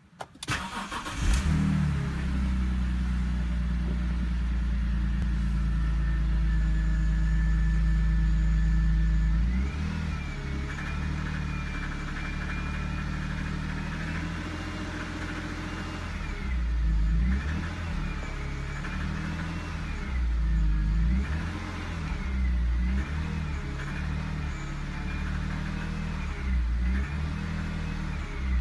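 BMW 330Ci E46's 3.0-litre straight-six starting from cold, holding a steady fast idle for several seconds, then revved repeatedly at idle, its pitch rising and falling with each blip of the throttle. The engine makes a clatter after the cold start and under revving.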